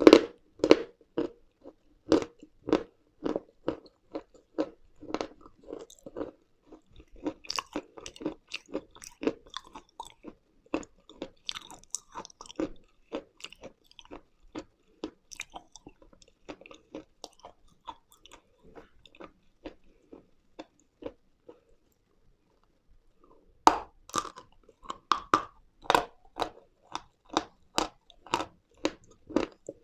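Close-miked biting and crunchy chewing of dry chalk or clay pieces, chewed steadily at about two strokes a second. A pause comes about 22 seconds in, and then loud, sharp crunches of fresh bites follow.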